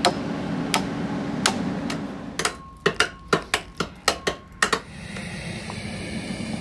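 Sharp strikes of a metal hand tool on rock: a few single blows spaced well apart, then a quick run of about ten blows at roughly four a second, ending a little before the last two seconds.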